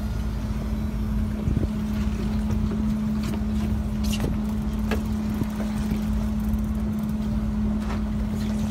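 Fishing boat's engine running steadily: a constant low hum with one steady tone, with a few light clicks over it.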